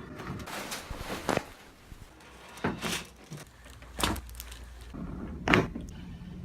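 Four sharp cracks from upper-back chiropractic adjustments, the spinal joints popping under the adjuster's thrusts, about a second and a half apart; the last is the loudest.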